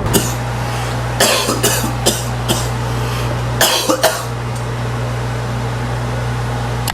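A person coughing in a series of short, sharp coughs over the first four seconds, over a steady low hum.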